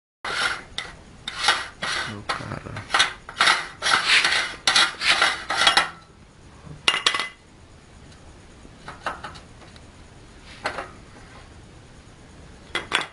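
Hard objects clattering and clinking, like metal dishes and utensils being handled. The clatter is dense and loud for about the first six seconds, then thins to a few scattered clinks.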